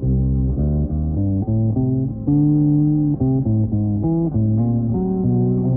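Fender Japan Boxer Series Precision bass played fingerstyle: a melodic line of single plucked notes that changes pitch every fraction of a second, with one note held longer near the middle.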